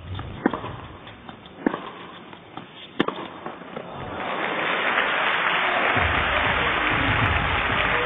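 Tennis ball struck with rackets three times, about a second and a quarter apart, in a rally. From about four seconds in, crowd applause rises and holds steady as the point ends.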